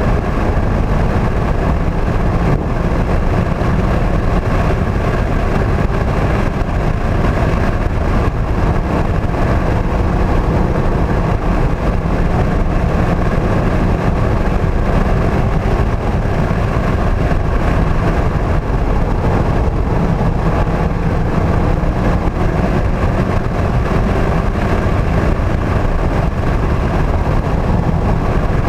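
2016 Mazda MX-5 Club's 2.0-litre four-cylinder engine running under way at track speed, with steady road and wind noise, heard from inside the cabin. The sound stays loud and even throughout.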